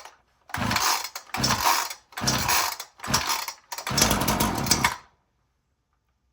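Ryobi two-stroke chainsaw being pull-started cold on full choke: five pulls of the recoil starter, each a short burst of the engine cranking, the last pull the longest, and the engine does not keep running.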